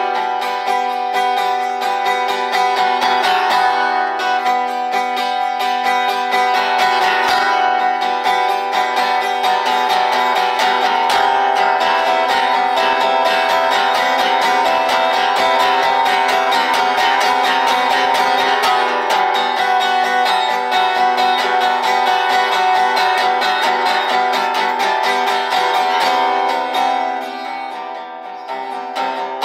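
Acoustic steel-string guitar strummed in fast, steady strokes, its chords ringing continuously; the playing softens briefly near the end.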